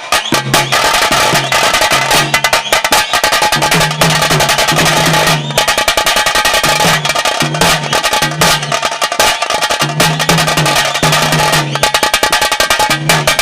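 Taase drums, the stick-beaten drums of the pili nalike tiger dance, played in a fast, dense rhythm. A low tone sounds under the beating in short, repeated stretches.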